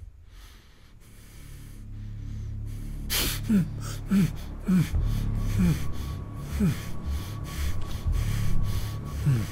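A person gasping repeatedly, starting about three seconds in: short breaths that each fall in pitch, coming every half second to a second.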